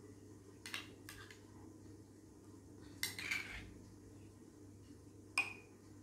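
Metal spoon clinking against glass tumblers and the bowl as thick yogurt is spooned in: a few light clinks about a second in and around three seconds, and a sharper clink with a brief ring near the end.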